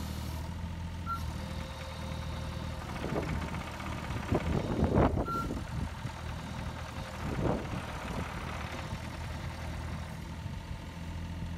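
Hitachi ZX27U mini excavator's 27-horsepower diesel engine idling steadily, with a few short louder swells a few seconds in.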